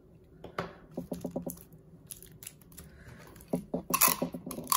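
Plastic straws and craft materials being handled on a tabletop: scattered light clicks and rustles, with a quick run of ticks about a second in and a louder scratchy rustle with clicks near the end.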